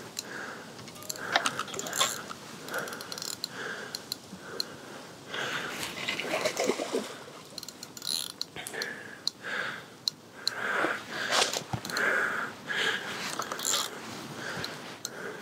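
Fishing reel ticking in short runs while a hooked carp is played close in at the margin. A spell of water splashing about six seconds in.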